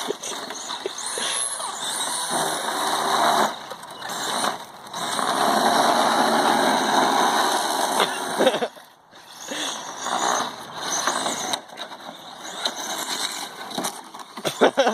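Three-wheeled electric RC monster truck driving in bursts: a high motor whine that rises with throttle, over the rough noise of its drivetrain and tires on the ground. The sound drops out briefly about two-thirds of the way through.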